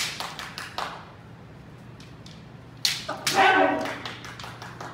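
Kendo bout: bamboo shinai clacking in a few sharp knocks, then about three seconds in a sharp strike followed by a loud, drawn-out kiai shout from a fencer.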